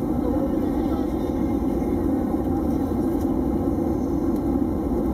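Steady cabin noise inside an Airbus A320 airliner on its landing approach: an even rumble of engines and airflow through the fuselage, with no change in level.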